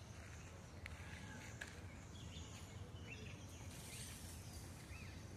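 Faint outdoor ambience of small birds chirping a few times over a low steady rumble. About four seconds in comes a brief rustling rattle: an Indian peafowl shivering its raised tail fan in display.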